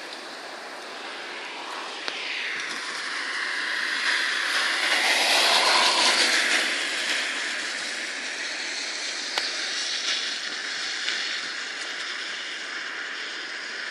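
Road and wind noise from a car driving across a bridge, a steady rush that swells louder for a few seconds near the middle and then settles.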